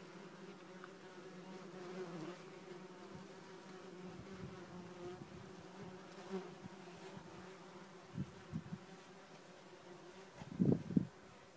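Wasps buzzing around their nest after insecticide has been applied, the agitated swarming typical of a treated nest. A steady buzz, with louder swells about eight seconds in and again near the end as wasps fly close.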